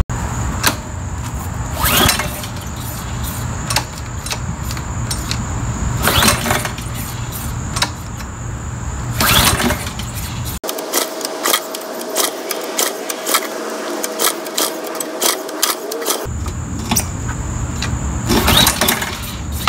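Recoil starter of a Honda GCV160 engine pulled several times with the choke on. Each pull is a short, sharp crank, and the engine doesn't catch: a no-start that the owner fears comes from stale fuel having fouled the carburetor.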